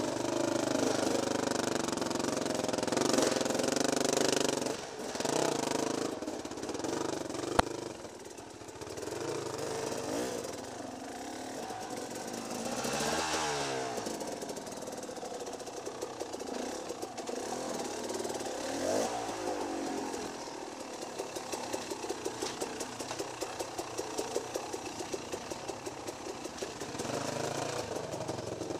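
Dirt bike engine running at low speed, its revs rising and falling as the rider works over rocky ground, with a steady hiss over it. A single sharp click comes a few seconds in, and a run of evenly spaced knocks fills the second half.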